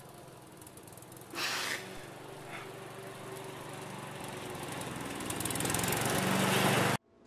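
A low, droning sound-design swell that rises steadily in loudness and cuts off abruptly near the end, as at a scene cut. About a second and a half in there is a short, sharp, breathy gasp from the crying man.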